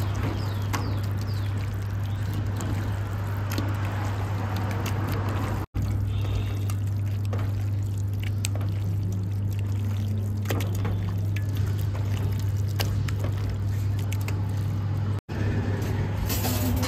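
Wet squelching and slapping of chicken pieces being kneaded by hand in a thick marinade in a steel bowl, over a steady low hum. The sound drops out briefly twice.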